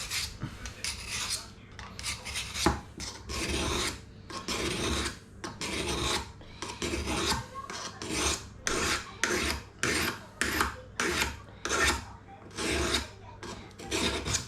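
Steel secateur blade being stroked across the coarse 360-grit face of a folding Trend sharpener: repeated short rasping scrapes, about one and a half a second. The blunt bevelled edge is being ground back to bright metal.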